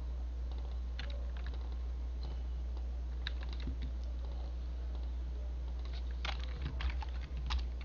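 Computer keyboard keystrokes: a few scattered taps, then a quick cluster of keystrokes near the end, over a steady low hum.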